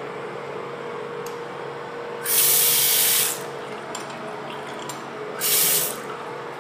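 Bathroom sink faucet running water into the basin, with two loud hissing spurts of spray, one about two seconds in lasting about a second and a shorter one near the end, over a steady background hum.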